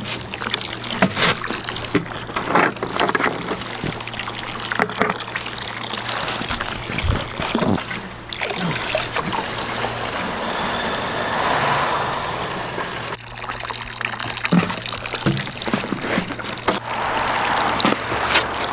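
Water trickling from a metal spout into a trough. Partway through, a plastic jerrycan is held under the stream to fill, with scattered knocks from handling the container.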